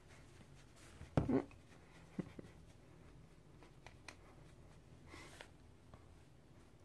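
Makeup brush blending powder contour on the face close to the phone microphone: faint scratchy brush strokes, with a short thump about a second in and a few light clicks.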